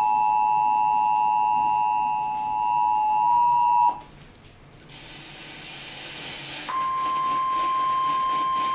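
Emergency alert attention signal announcing a flash flood warning: a steady two-tone alarm that cuts off about four seconds in, then after a short lull a single steady alert tone starts and holds to the end.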